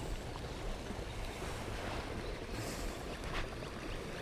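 Steady rushing of water at a spillway, an even wash of noise, with a brief brighter gust of hiss about two and a half seconds in.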